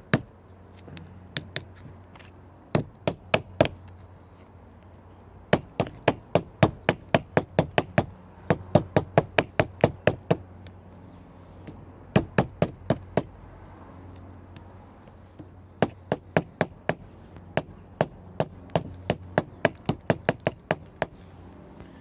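A hand-held piece of milky quartz striking a quahog shell held on a granite stone, chipping the shell into smaller pieces: sharp clicking knocks, about four a second, in runs of a few seconds with short pauses between.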